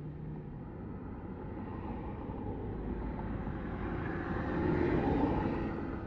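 Road vehicle noise: a rumble that swells to its loudest about five seconds in, then eases off.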